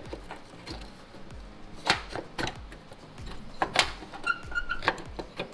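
Metal clinks and sharp knocks of an open-end wrench prying at a hood latch to pop its release cable free, the loudest about two seconds in and again just before four seconds.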